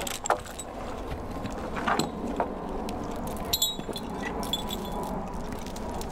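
Metal chain and hooks of a Belgian draft horse's log-skidding harness clinking and jingling, with a few dull knocks in between.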